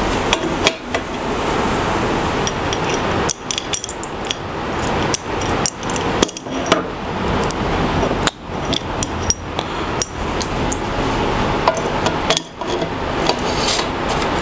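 Irregular clicks, clinks and knocks of metal router-fence parts being handled and adjusted on a router table, over a steady background noise.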